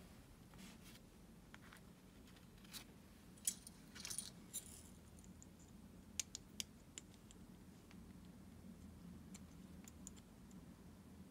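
Faint, scattered clicks and clinks of small metal parts of a Shimano Calcutta Conquest baitcasting reel being handled and fitted together by hand, with a cluster of clicks a few seconds in and a quick run of three a little later.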